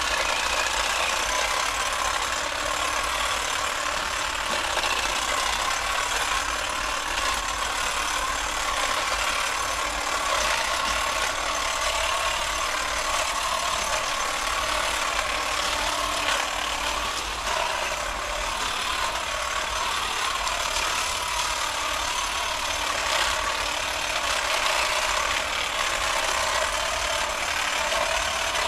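Electric long-reach pole hedge trimmer running steadily as it cuts through a hedge.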